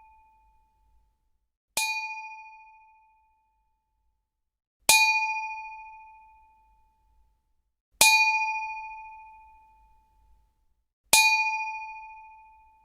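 Struck metal giving a single bright ding, repeated four times about three seconds apart. Each hit is sharp and rings at two clear pitches before dying away over a second or two.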